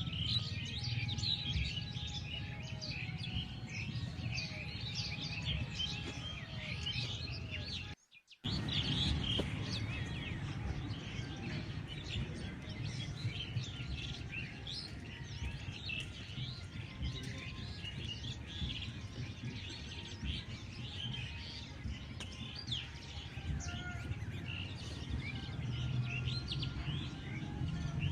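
A dense chorus of many small birds chirping and twittering over a steady low rumble of background ambience, cut off briefly by a moment of silence about eight seconds in.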